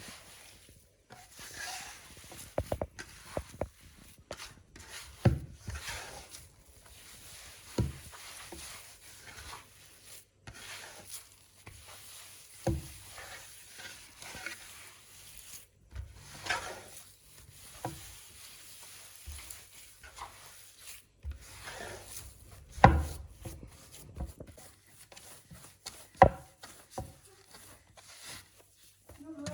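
Hand work on mhajeb dough: rubbing and handling noise with irregular knocks against a wooden surface, the loudest about 23 seconds in.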